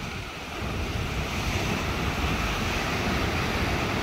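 Ocean surf breaking and washing up a sandy beach, a steady rushing that swells a little about half a second in, with wind buffeting the microphone.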